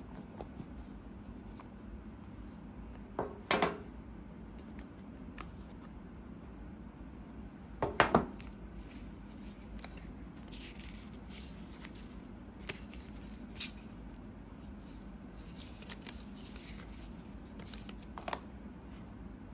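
Cardboard AirPods 3 box and its paper inserts being handled: short rustles and scrapes of card and paper, the two loudest about three and a half and eight seconds in, over a steady low room hum.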